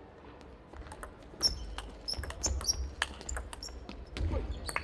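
Table tennis rally: the plastic ball clicking sharply off the rackets and the table in quick, uneven succession, starting about a second and a half in, with short high shoe squeaks on the hall floor among the hits.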